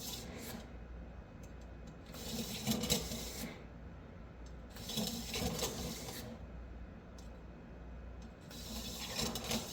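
Rifle cleaning rod rubbing and scraping against steel in three spells of a second or so, about two, five and nine seconds in.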